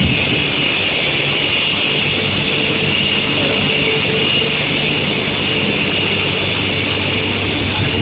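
Steady mechanical running noise of a steel-sheet quenching line, its powered roller conveyor and drive motors working, with a steady high whine over it.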